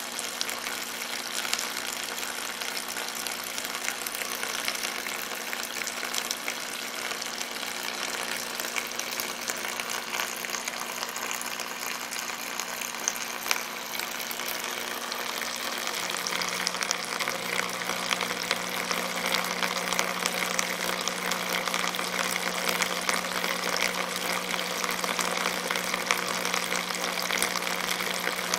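Oscillating water pump pulsing 60 times a second, running with a steady hum over the hiss and patter of water spraying from the fountain spout. The hum grows a little stronger about 16 seconds in.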